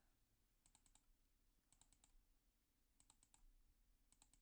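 Faint computer mouse double-clicks, in four quick clusters about a second apart.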